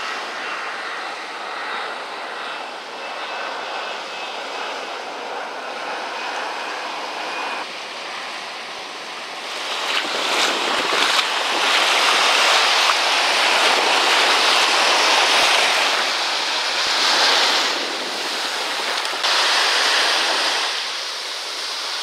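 A jet airliner passing overhead, its engines a steady distant whine over the sound of surf. From about ten seconds in, louder waves wash and splash in the shallows.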